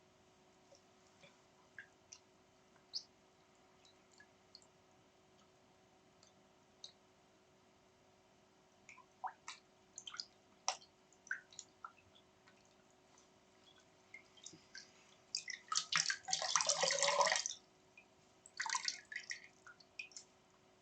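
A dog's wet mouth noises: scattered soft clicks and smacks, then a louder wet smacking stretch of about two seconds, followed by a shorter one.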